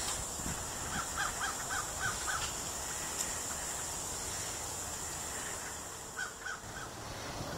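A bird calling: a quick run of about six short calls about a second in, then three more near the end, over a steady background hiss.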